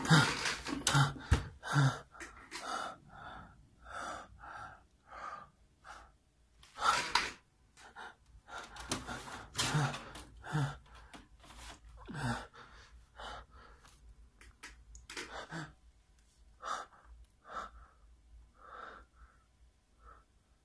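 A man breathing and gasping raggedly in short, irregular vocal bursts, with a few louder noisy breaths near the start and about seven seconds in. It is acted, a man playing at turning into a zombie.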